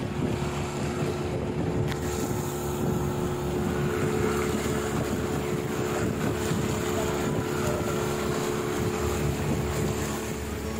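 A small boat's outboard motor running steadily at cruising speed, with wind buffeting the microphone and water rushing past the hull.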